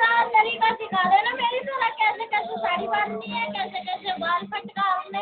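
Music with a high-pitched voice singing over a steady low note.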